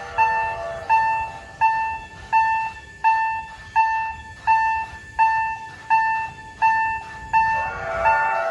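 Japanese railway crossing warning bell ringing in a steady rhythm, about three strikes every two seconds, each a clear ringing tone that fades before the next. Near the end more ringing tones join in over the bell.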